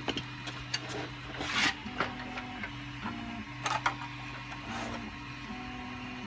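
A 3D printer's stepper motors running, humming in short steady tones that change pitch every second or so. Several knocks and scrapes come from a large 3D-printed plastic ring being lifted and turned over by hand.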